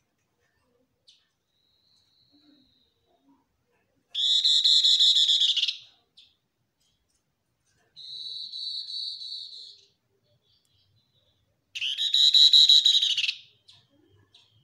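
Striped tit-babbler (tepus lurik) calling: three rapid trills of quickly repeated notes, each lasting a second or two. The first and last are loud and full, and the middle one, about halfway through, is quieter and thinner.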